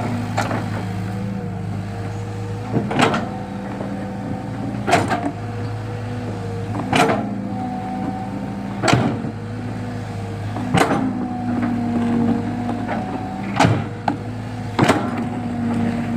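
Excavator engine running steadily with a wavering whine over it, broken by sharp knocks about every two seconds.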